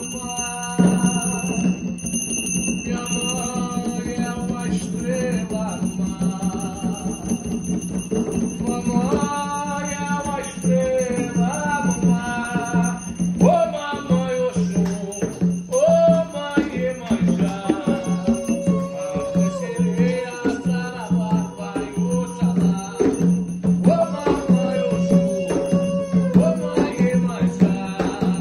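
Devotional music: a sliding melodic line over a steady low hum, with a rattle shaking in a fast, even rhythm underneath.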